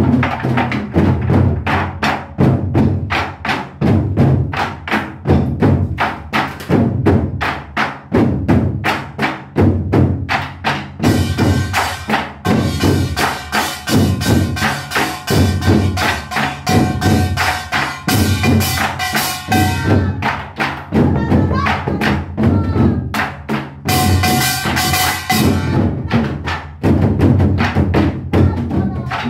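Korean modeumbuk drums beaten with sticks in nanta style: a fast, steady drum rhythm of about four strikes a second, deep booming hits mixed with sharp clicks. A backing track with sustained melodic tones comes in under the drumming about eleven seconds in, dropping out briefly near the end.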